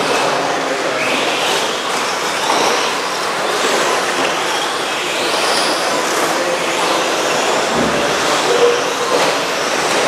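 Several RC stadium trucks racing together: high-pitched motor whines rising and falling as they speed up and slow down, over a steady rush of running noise.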